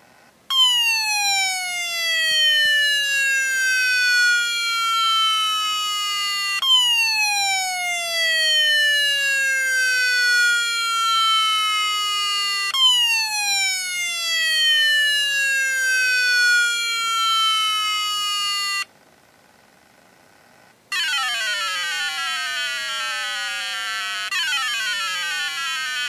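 An old laptop hard drive making a strange whine whose pitch glides slowly down, repeated three times at about six-second intervals. It breaks off briefly, then two shorter falling glides follow. This odd noise comes from a very old, faulty drive.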